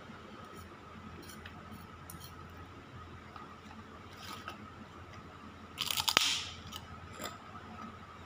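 Eating with a spoon and fork: small scattered clicks of the cutlery against the food and dish. About six seconds in there is a short, loud crackle with a sharp click in it.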